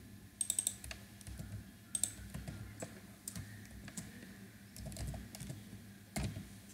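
Computer keyboard typing: sparse, quiet keystrokes, with a quick run of several taps about half a second in and then single taps spread out.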